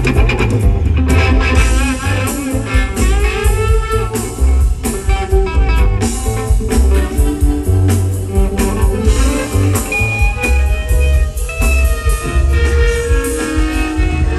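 Live band playing an instrumental passage: electric guitar over upright bass and a drum kit, loud and continuous.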